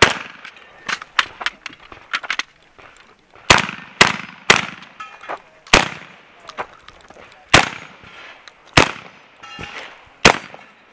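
AK-pattern semi-automatic 12-gauge shotgun firing about eight shots, most one to two seconds apart and three in a quick string half a second apart around the middle. Fainter sharp cracks fall between the shots.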